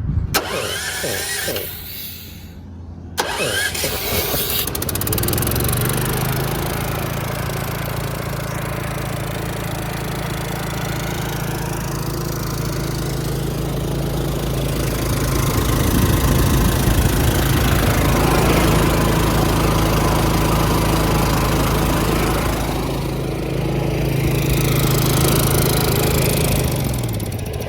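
Honda gas engine on a truck-mounted air compressor starting up about three seconds in, then running steadily as the compressor pumps air. It runs a little louder from about halfway through.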